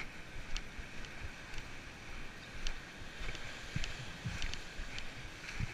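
Wind noise on the microphone, a low uneven rumble under a steady hiss, with scattered light clicks and knocks about one or two a second.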